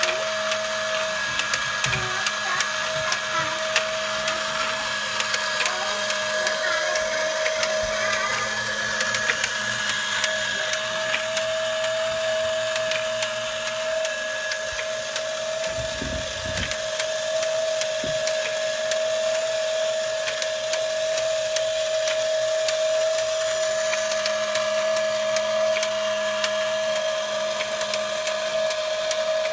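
Transparent plastic model four-cylinder engine kit running on its small electric motor: a steady whine with rapid clicking of the plastic pistons, crank and valve train. There is a brief low bump about halfway through.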